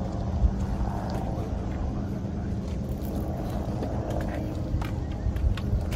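Steady low rumble of a car driving, the engine and road noise heard from inside, with a faint steady hum and a few light clicks.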